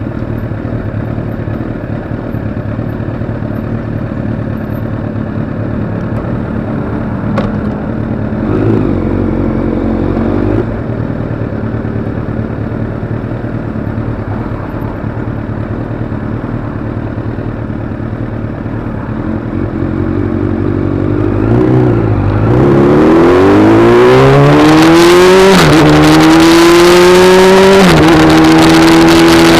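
Engine of the vehicle carrying the camera, running steadily at low speed, then, about three quarters of the way in, accelerating hard: its pitch climbs, drops twice at gear changes and levels off, with a growing rush of wind.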